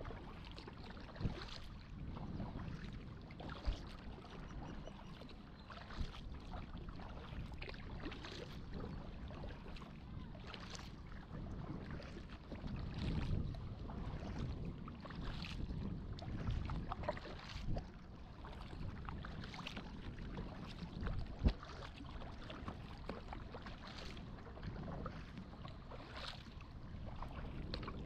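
Kayak paddle strokes dipping and splashing in the water about every two seconds, over a steady low rumble, with a few sharp knocks.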